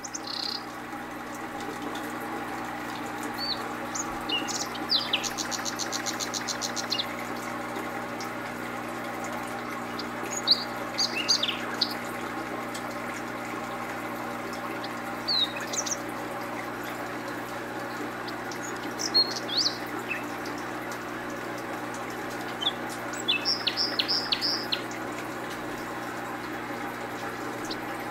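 Small birds chirping in short scattered calls, including a fast trill about five seconds in, over a steady background hum.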